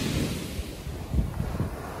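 Ocean surf washing onto the beach as a wave's hiss dies away, with wind buffeting the microphone in low rumbling gusts, the strongest about a second in.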